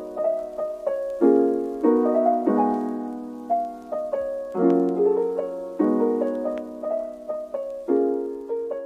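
Background piano music: a gentle melody over chords, with notes struck about once a second and left to ring down.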